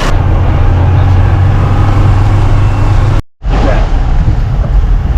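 Motor vehicle engine running with a loud, steady low rumble and road noise. The sound cuts out abruptly for a moment a little over three seconds in, then resumes.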